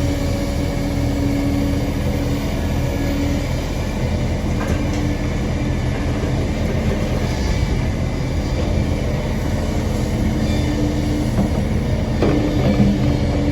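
Kobelco excavator working, its heavy diesel engine running steadily under load. A steady whine in the engine sound fades about three seconds in and comes back near the end.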